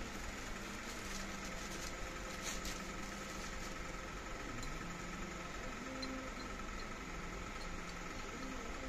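Handling noise from assembling a metal candle stand: brief rustling and clicking of plastic wrap and metal parts, loudest about two and a half seconds in, over a steady room hum with a faint high tone.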